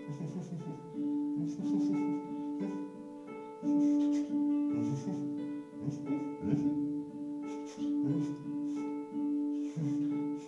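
Instrumental passage of a small folk-style band: strummed acoustic guitars with an accordion sounding a repeated held note over them.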